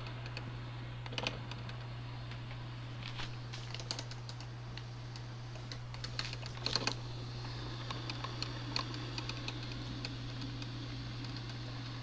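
Drip coffee maker brewing: irregular light clicks and ticks in small clusters over a steady low hum.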